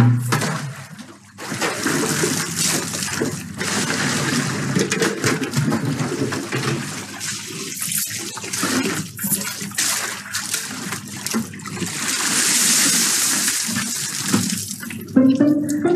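Water splashing and sloshing from buckets drawn up out of a well and from hand-washing in a basin, with a louder steady pour of water about twelve seconds in.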